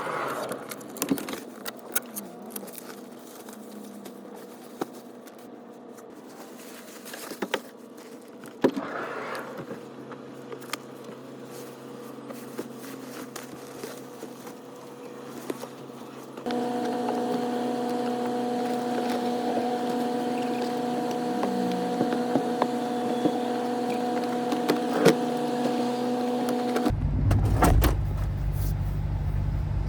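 Scattered clicks and knocks, then a steady electric hum that sets in about halfway. Near the end the minivan's engine starts and runs with a low rumble.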